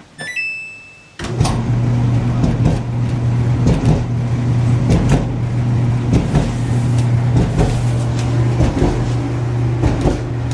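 Kenmore clothes dryer's control panel beeps once, then the dryer starts and runs with a steady motor and drum hum, broken by irregular thumps and knocks. These are the complaint thumping noise, which is traced to a cracked drum at the back.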